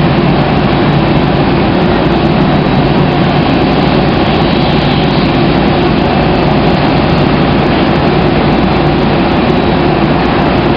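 Jet aircraft engines running steadily: a loud, even noise with a low hum, unbroken and without single events.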